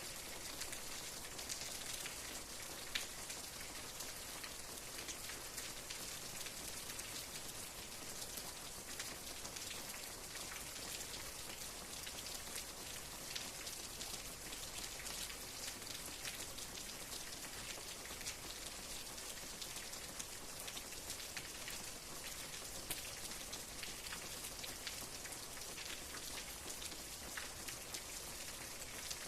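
Steady rain with many separate drops ticking on a surface over a soft, even hiss.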